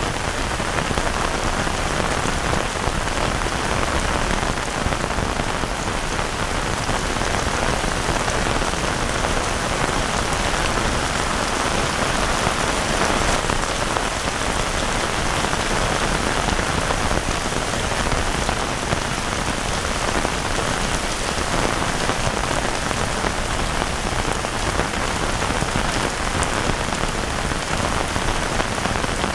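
Steady rain falling at an even level.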